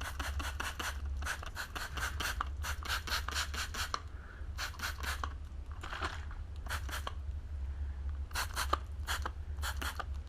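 Short scratchy, scraping strokes in quick irregular clusters, from hands working over the new gas water heater's fittings during a leak check, over a steady low hum.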